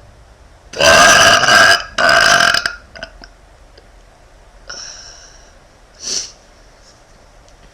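A young woman burping loudly twice in quick succession: a long burp of about a second, then a slightly shorter one. A fainter, shorter sound follows about two seconds later, then a brief sharp one.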